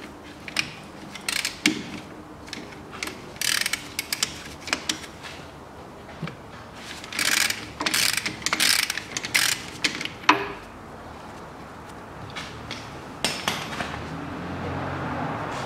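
Socket ratchet clicking in repeated bursts as a 24 mm socket unscrews the fill plug on a front differential housing.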